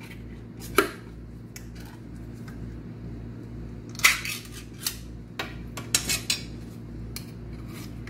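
Sharp metallic clicks and clinks of a small tin can of sweetened condensed milk being opened with a metal tool, the loudest about four seconds in and a quick cluster around six seconds. A steady low hum lies under it.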